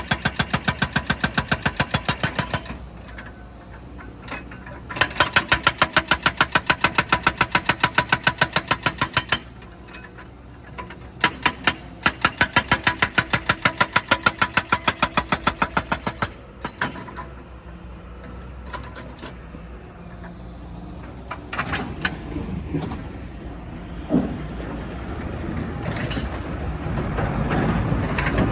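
Rock-breaking heavy machinery hammering in rapid, even blows, about seven a second, in three bursts that stop and start, with an engine running between them. Near the end the engine rumble grows louder.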